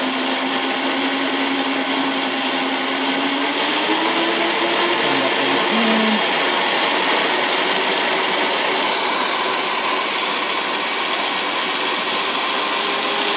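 Power Wheels Eliminator's electric drive motors and gearboxes running with a steady whine that climbs in pitch about four seconds in, as the governor potentiometer on the speed controller raises the motor voltage from about 12 to 19 volts.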